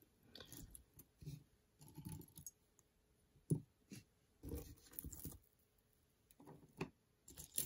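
Loose metal costume-jewelry earrings clinking and rustling as a hand picks through a pile of them on a table: scattered light clicks, with one sharper click about three and a half seconds in.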